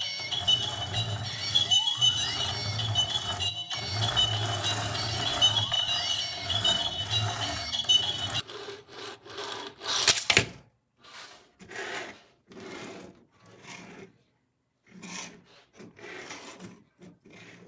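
Intro music with a steady beat for about eight seconds, then it cuts off. Short separate rustles and clicks of toy packaging being handled follow, the loudest a sharp crackle about ten seconds in.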